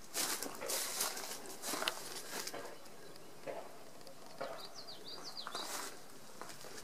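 Footsteps on straw and dirt, uneven steps as someone walks along a trench. A bird chirps a quick run of short high notes a little past halfway.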